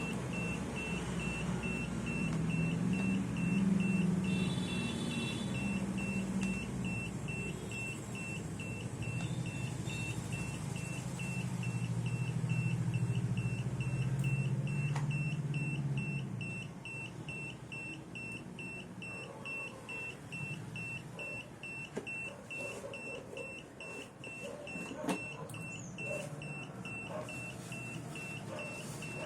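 Carbon monoxide meter alarm beeping steadily in rapid, even pulses of one high tone, the warning of a high CO reading. A low rumble runs under it and stops about halfway through, and a few light clicks follow.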